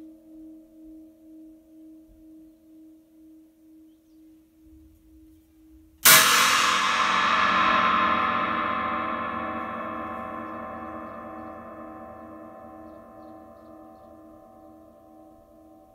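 A 1970s Wuhan 21½-inch china cymbal. For the first six seconds the dying tail of an earlier strike hums with a slow, even pulsing. About six seconds in it is struck once, a bright, trashy crash that swells for a moment and then rings down slowly.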